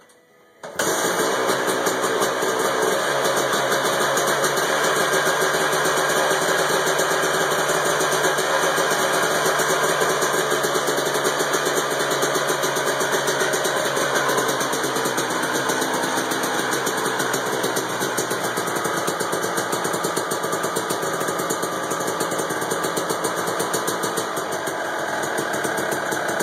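Dirt bike engine catching about a second in, then running at a steady idle.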